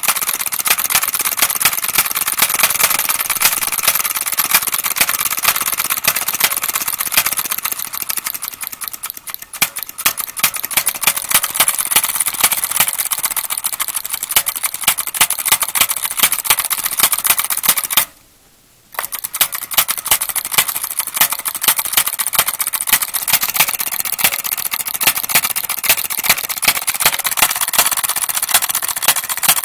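Homemade Lenoir engine with a wooden cylinder running: a fast, steady string of firing pops and light mechanical clatter. It falters briefly about nine seconds in and breaks off for about a second around 18 seconds in, then carries on.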